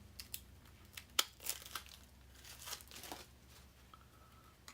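Plastic shrink-wrap being torn and crinkled off a deck of cards, in several short crackles followed by a longer rustle.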